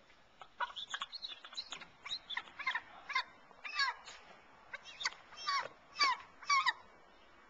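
Young bald eagle calling: a series of about a dozen high, thin chirping notes, each sliding down in pitch, growing louder toward the end.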